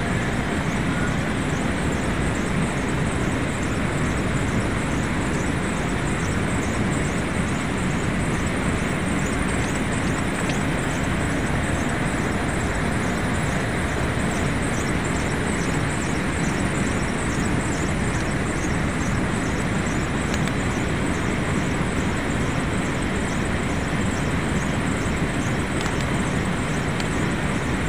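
Steady, even rushing noise of rooftop cooling tower equipment running, fan and falling water.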